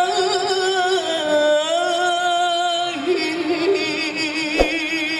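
Male solo voice singing a nasyid in Middle Eastern style, holding long ornamented notes with wide vibrato and stepping down in pitch twice. A single sharp click sounds near the end.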